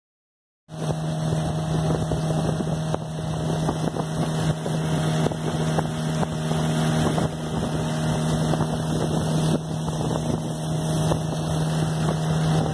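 Small outboard motor running steadily at speed, driving an aluminium boat, with wind buffeting the microphone. It cuts in abruptly under a second in, after silence.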